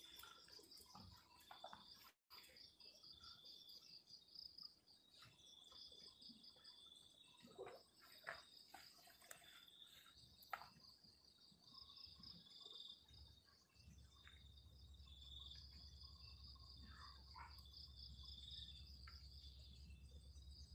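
Faint chorus of night insects, crickets trilling in steady pulsing lines, with a few small clicks and rustles in the middle. A low hum joins about two-thirds of the way in.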